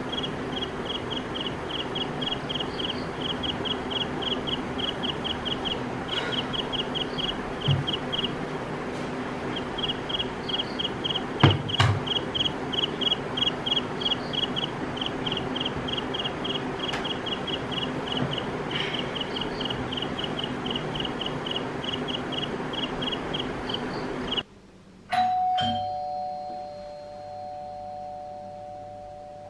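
Night ambience of a steady high chirping, about four chirps a second, over a low hum, which cuts off suddenly about 24 seconds in. A moment later an electronic two-tone doorbell chime sounds, a higher note then a lower one, both ringing out and fading.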